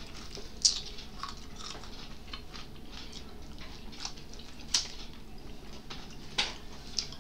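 Close-miked chewing and crunching of fried dried fish (bisugo), with many small crackles and a few sharper crunches, over a steady low hum.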